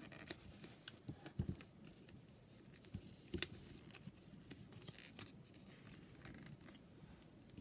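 Faint sounds of items being handled by hand: scattered light taps and clicks, the loudest a pair about a second and a half in, with soft rustling later on.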